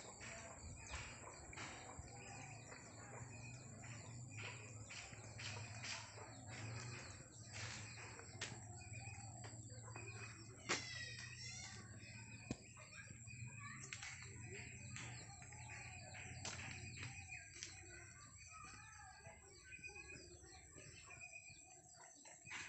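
Faint outdoor ambience of scattered bird chirps and calls, with one quick run of high sweeping notes about halfway through. A low steady hum sits underneath and fades out about three quarters of the way in.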